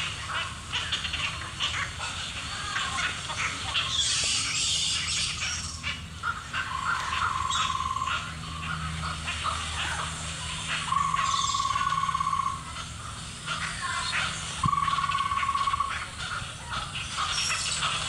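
Birds chirping and chattering in a dense chorus. A flat, buzzy whistled note about a second and a half long repeats every three to four seconds from about seven seconds in. Brief bursts of high, hissy chatter come about four seconds in and again near the end, over a faint low hum.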